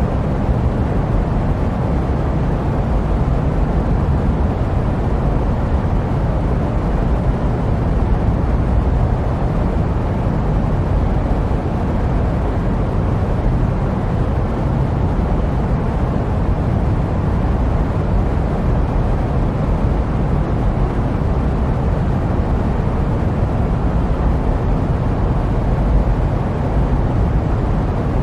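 Steady jet-airliner noise: an even, unbroken low rumble with a softer hiss above, used as sleep white noise.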